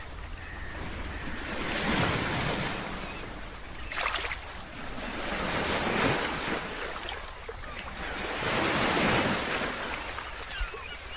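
Ocean waves breaking and washing on the shore, the surf swelling and easing every two to three seconds.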